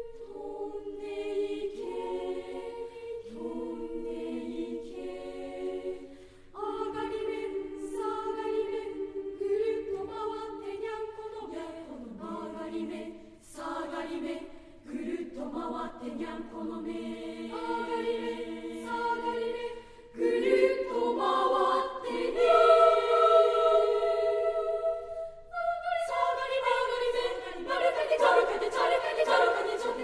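Junior high school choir singing in several parts, a choral setting of Japanese children's play songs, the voices moving together in chords. The singing dips briefly twice and grows louder about twenty seconds in and again near the end.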